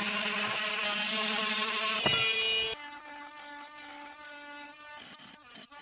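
Oscillating multi-tool running and cutting with a multi-purpose blade: a loud, steady buzz that drops abruptly about two and a half seconds in to a quieter, steadier hum.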